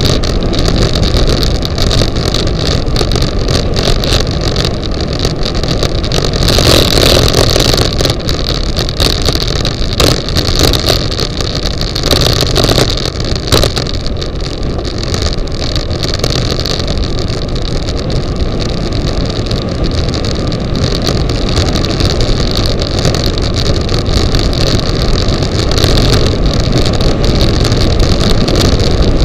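Loud wind rushing over the microphone of a bicycle-mounted camera on a fast road descent. It swells twice along the way, with a few sharp knocks.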